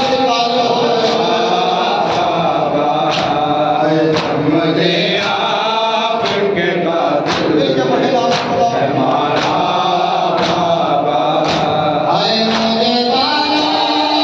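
A man chanting a noha, a Shia lament, through a microphone, with other men's voices joining in. Sharp strikes of matam, chest-beating by the mourners, keep an even beat of about one per second.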